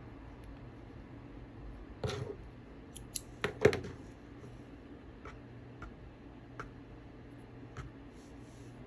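Fabric being handled on a tabletop: a few rustles and sharp knocks about two to four seconds in, the loudest near the middle, then a handful of light ticks, over a steady low hum.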